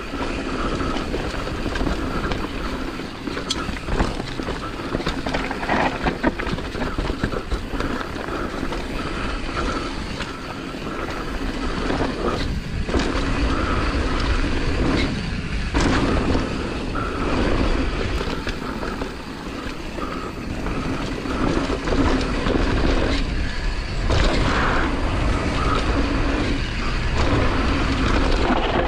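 Downhill mountain bike's ride noise picked up by a GoPro on the bike or rider: tyres rolling over a dirt trail, with chain and frame rattling and sharp clacks over bumps, under steady wind on the microphone.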